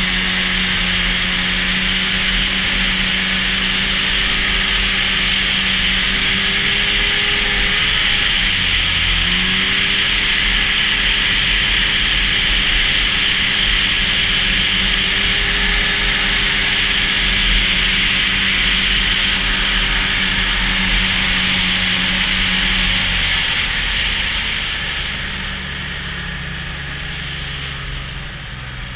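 Snowmobile engine running at steady high revs under a loud steady hiss, its pitch dipping briefly about eight seconds in, then dropping lower and quieter as the sled slows near the end.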